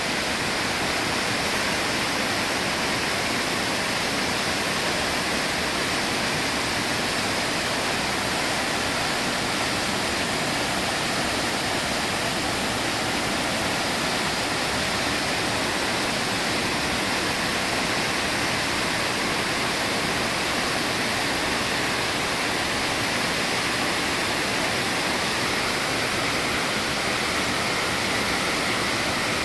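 A 90-foot horsetail waterfall: a steady, even rush of water falling onto rock.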